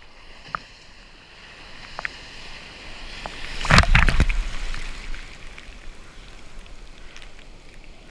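Ocean water rushing and splashing close to the microphone, building to a loud burst of churning whitewater about four seconds in, then fading back to a steady wash.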